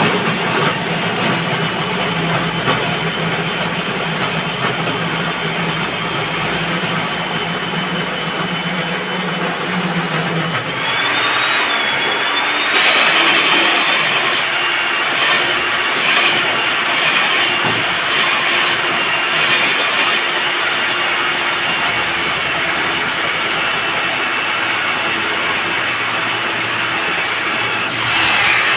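Electric core cutting machine running as it bores a hole through a concrete slab: a steady motor whine that rises in pitch about eleven seconds in, joined soon after by harsher grinding with uneven scraping.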